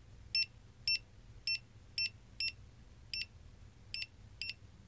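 Honeywell SG20 barcode scanner beeping about nine times at uneven intervals, one short high beep for each barcode it decodes in continuous-read mode, including a scuffed one.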